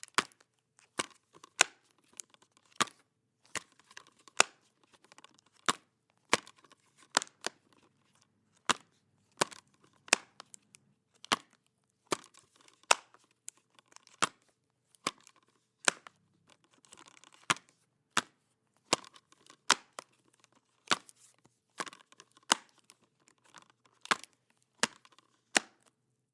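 A plastic DVD-style disc case opened and closed over and over: sharp plastic clicks and snaps as the lid swings and latches, about one or two a second, with light rustling of the plastic between them.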